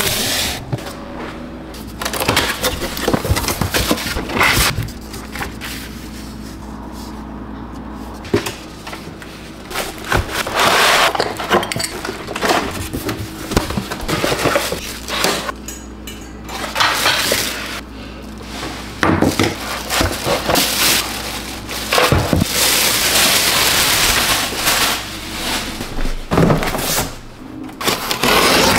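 Packaging being handled and opened: irregular knocks, scrapes and rustles of cardboard, moulded pulp trays and plastic, with scissors slicing through box tape near the end. A faint steady low hum runs underneath.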